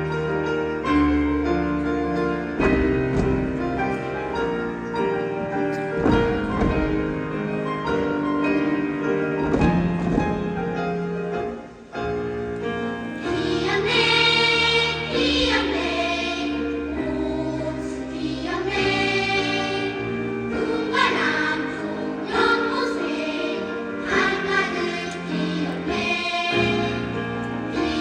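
Children's choir singing with piano accompaniment. The first half is the piano introduction alone, and the voices come in about halfway through.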